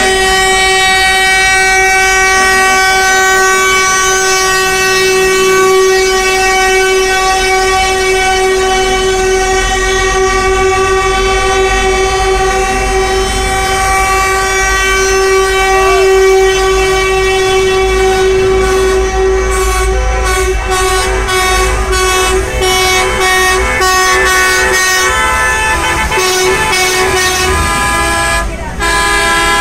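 Truck horns sounding without a break in a steady, multi-toned note, over the low rumble of the passing trucks' diesel engines, which grows stronger in the second half.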